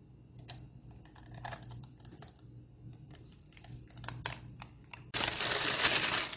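Light, irregular clicks and taps as a soft cream mixture is poured and scraped from a ceramic plate into a plastic piping bag, then, about five seconds in, the plastic bag crinkling loudly as it is gathered and twisted shut.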